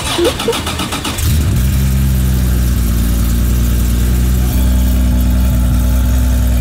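Air-cooled flat-six of a Porsche 911 Safari build, freshly rebuilt, turning over and catching about a second in, then settling into a steady idle.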